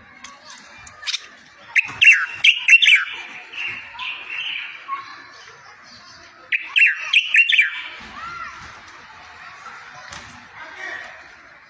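A small songbird singing in two loud bursts of quick, high chirps and trills, about two seconds in and again near seven seconds, with softer twittering between them.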